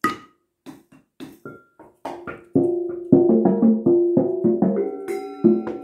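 Improvised percussion of metal pots and a bicycle wheel struck with yarn mallets: a few sparse, dry taps over the first two seconds, then a quick run of ringing, pitched metallic notes that overlap and sustain.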